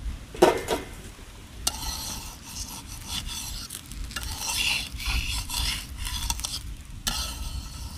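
Metal spatula scraping and pressing around the edges of a broken-rice cake in a hot metal kadai, loosening it from the pan's sides, with a light sizzle. A brief ringing metal clank comes about half a second in.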